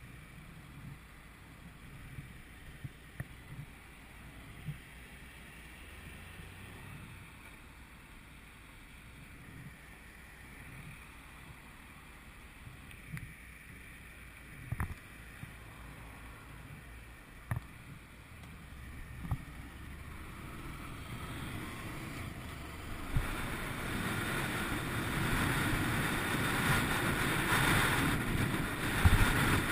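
2011 Honda VFR800 VTEC's V4 engine idling at a junction, a faint low rumble with a few sharp clicks, picked up by a helmet-mounted camera. About 22 seconds in the bike moves off, and rising wind noise on the helmet grows louder and covers the engine.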